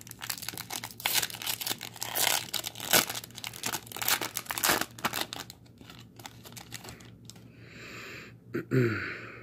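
A foil trading-card pack wrapper torn open and crumpled, a dense run of sharp crinkles and rips for the first five seconds or so, then quieter rustling as the cards are handled. A brief breathy vocal sound comes near the end.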